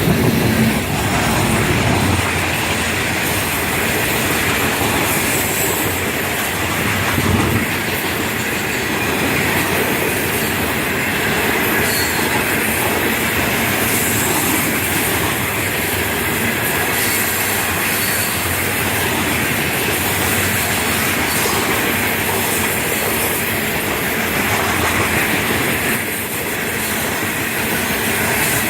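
Freight cars of a Florida East Coast Railway train rolling steadily past close by: a continuous rumble of steel wheels on the rails, with clickety-clack over the joints and a high wheel squeal.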